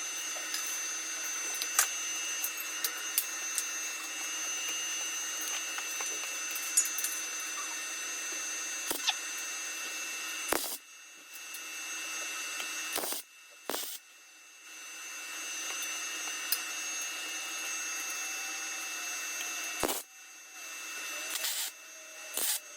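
Welding arc hissing and crackling as steel bracket plates are tack-welded in place, in several runs broken by brief pauses.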